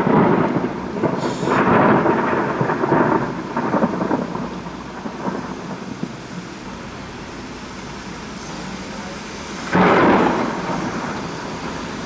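Thunder rolling loudly and dying away over several seconds, then a sudden new clap of thunder about ten seconds in that rumbles off again, with steady heavy rain underneath.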